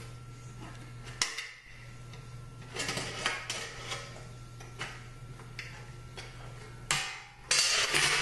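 Hand metal snips cutting and crunching through thin sheet metal in several separate cuts, with metallic clinks; the snips are old and dull. A steady low hum runs underneath, and the loudest crunching comes near the end.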